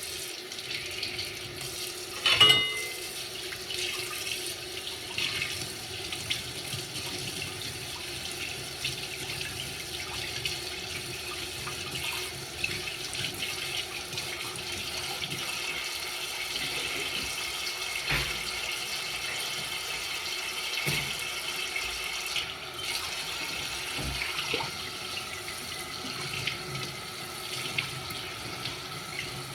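Kitchen sink tap running steadily while dishes are washed by hand, with occasional knocks and clinks of dishware. A loud ringing clink comes about two seconds in.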